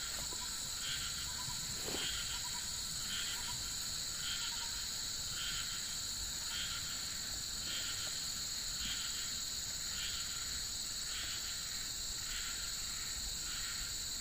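Chorus of wild insects: a steady high-pitched drone, with another insect call pulsing a little more than once a second.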